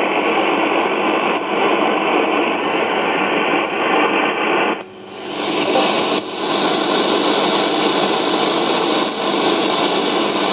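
Shortwave radio static from an SDRplay RSP1A software-defined receiver being tuned across the bands: a steady, loud hiss with a clean upper cutoff, as through a narrow receive filter. About five seconds in it dips briefly, then comes back brighter and fuller.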